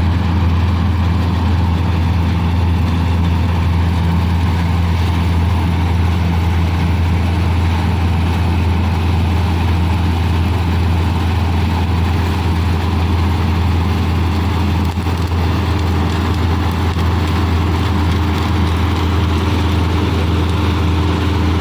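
Combine harvester's diesel engine running steadily, with a deep, even drone that does not change.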